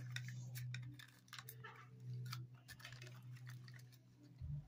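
Crinkling plastic wrapping and small clicks as a plastic Mini Brands capsule ball is peeled open by hand, in irregular little crackles over a low steady hum.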